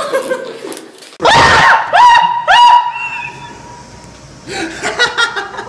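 A person screaming in fright: three sharp, high-pitched screams about a second in, the last one trailing off.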